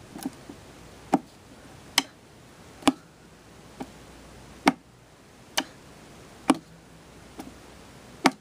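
A clock ticking, slow and even, about one tick a second, some ticks louder than others.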